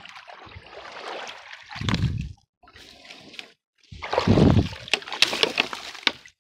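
Shallow creek water splashing and sloshing as someone wades through it, with louder splashes about two seconds in and again around four to five seconds in, and a few sharp knocks near the end.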